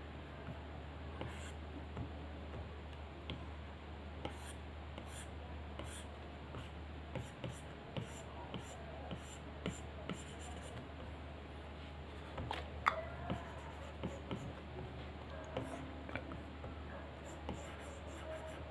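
Stylus tip tapping and stroking across the iPad Pro's glass screen while drawing: a run of light, irregular taps and scratchy strokes, with one louder tap about thirteen seconds in. A steady low hum sits underneath.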